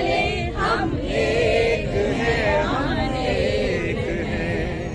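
A crowd of supporters chanting slogans together, many voices at once.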